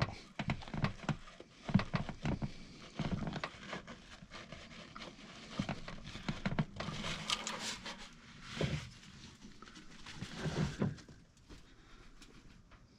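Hand tools working on metal engine parts: irregular clicks, taps and clinks, with a short hissy stretch about two-thirds of the way in, fading out near the end.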